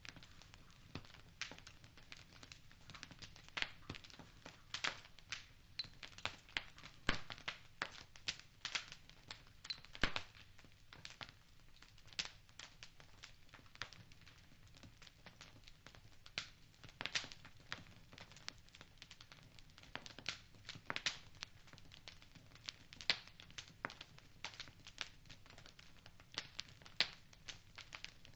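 Wood fire burning in a fireplace: irregular sharp crackles and pops, several a second, over a faint steady hiss.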